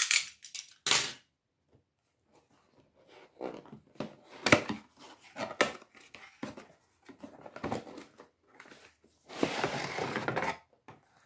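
Cardboard action-figure box being opened by hand: scattered clicks, scrapes and rustles, with one sharp click about four and a half seconds in and a longer stretch of rustling about a second long near the end.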